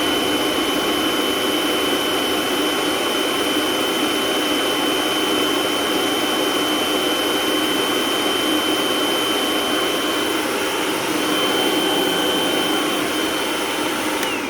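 Food processor motor running steadily with a high whine, grinding boiled carrots and sweet potatoes with their cooking liquid into a puree. It winds down right at the end.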